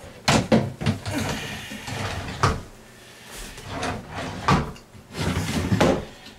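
Wooden vanity drawer being fitted back onto its runners and pushed shut: a series of sharp wooden knocks with scraping slides between them.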